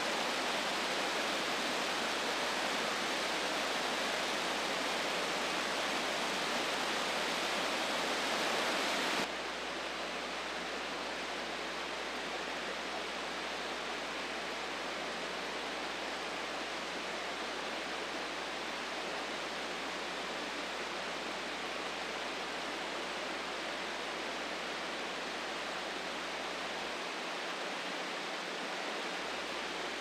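Buttermilk Falls' cascade rushing in full flow: a steady hiss of falling water. About nine seconds in it switches abruptly to a slightly quieter, duller rush.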